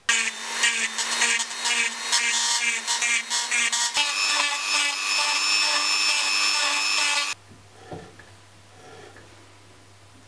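Handheld rotary tool running at high speed with a small burr grinding a detent dimple into a lathe saddle. Its pitch steps up about four seconds in, and it stops sharply about seven seconds in.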